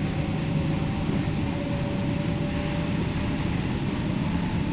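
MTR K-Train heard from inside the carriage while running at speed: a steady rumble of wheels on track with an even hum over it.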